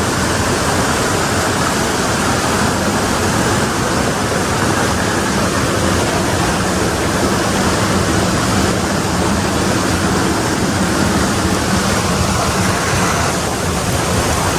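Waterfall and rapids rushing steadily over rocks close by, a loud, even roar of falling water.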